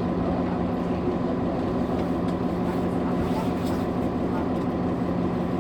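Nova Bus LFS city bus under way, heard from inside: steady engine and road rumble with a constant droning tone over it, the odd engine sound this bus has.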